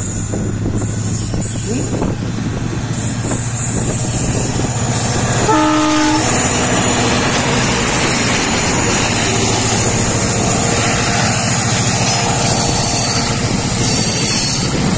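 WDP4D diesel locomotive passing close by, its two-stroke EMD engine running with a steady low drone, sounding one short horn blast about five and a half seconds in. After it the passenger coaches' wheels run by on the rails.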